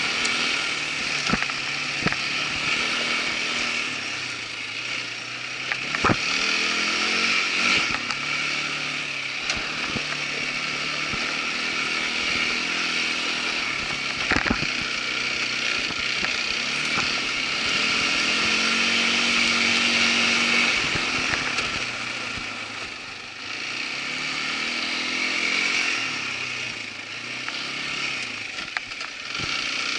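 Irbis ATV 200 quad bike engine running under way, its pitch rising and falling over and over as the throttle is opened and eased, with occasional sharp knocks from the ride.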